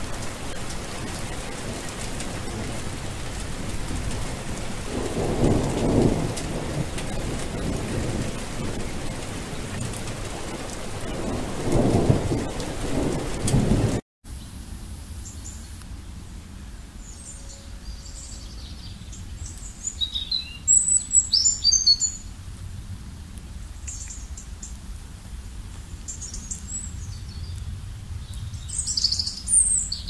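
Steady rain with two low rolls of thunder, about five seconds in and again about twelve seconds in. The rain cuts off suddenly about fourteen seconds in, giving way to birds chirping in short high calls over a faint low background rumble.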